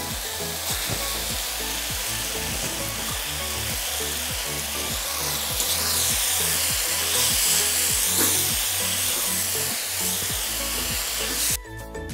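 Noodles and vegetables sizzling as they fry in a metal kadhai, with a spatula scraping and stirring against the pan, over background music with a steady beat. The sizzling cuts off suddenly near the end, leaving only the music.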